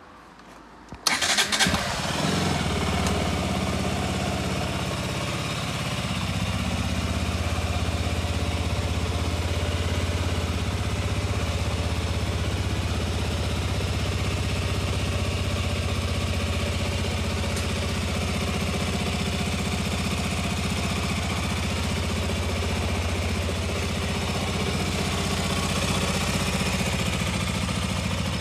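KTM RC125's single-cylinder four-stroke engine cranked on the electric starter and catching about a second in, then idling steadily.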